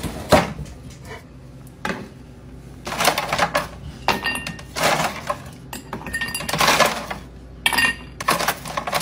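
Dishes clattering and clinking in a string of short, irregular bursts.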